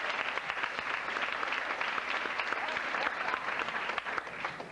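Audience applauding: a dense, steady patter of many hands clapping, thinning out right at the end.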